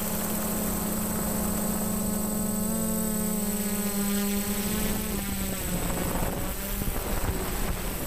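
Multirotor drone's electric motors and propellers humming steadily, heard close up from its onboard camera, with a faint high electronic whine over hiss. The pitch of the hum wavers slightly after about five seconds.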